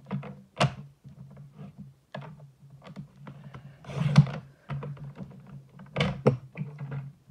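Paper trimmer in use: knocks and clicks of the blade carriage and rail as card is positioned, with a short scraping cut about four seconds in, over a steady low hum.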